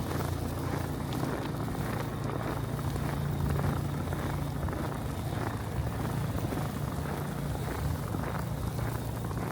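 A steady low engine drone with a few even tones, a little louder a few seconds in, over faint regular crunching of footsteps in snow about twice a second.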